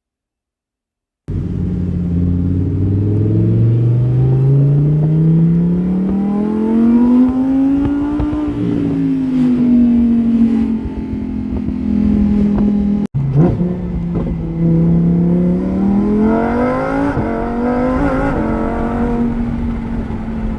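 Lamborghini Huracán Performante's V10 engine accelerating on the road, its pitch climbing steadily for several seconds, easing off and holding, then climbing again after an abrupt break about thirteen seconds in.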